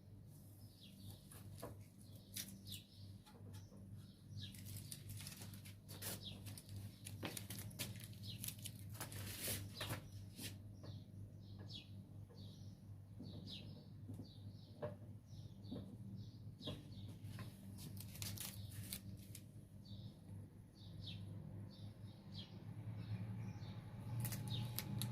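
Small birds chirping in short repeated notes, over a steady low hum, with scattered sharp clicks.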